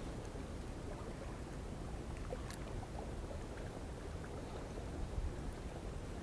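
Steady low rumble of wind and sea on an open rocky shore, with a few faint clicks.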